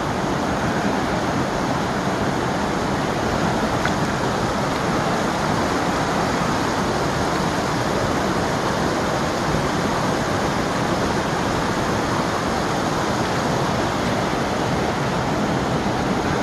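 Mountain creek rushing over rocks in a steady, unbroken rush of water.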